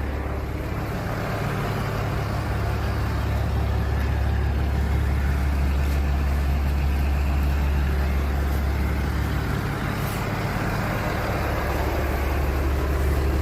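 Large diesel engine, most likely the bulldozer's own, running steadily with a low, even drone.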